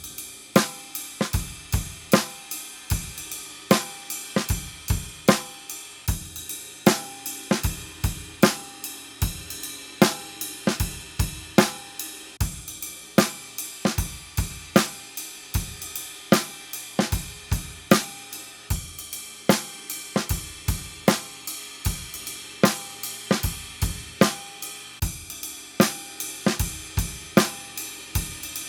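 Acoustic drum kit played with Pearl drumsticks: a steady, even groove of bass drum, snare and hi-hat with cymbals, starting with a loud hit.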